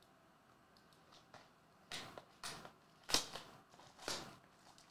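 Clear plastic wrapping on a trading-card box crinkling in several short rustling bursts as it is pulled off. The bursts start about two seconds in, and the loudest comes just after three seconds.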